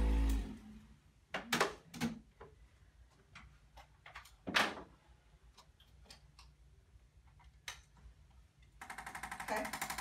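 Background music cuts off at the start, followed by a few scattered clicks and knocks as a handheld electric percussion massager is handled. Near the end the massager starts up with a rapid, even hammering as it is pressed against a person's back.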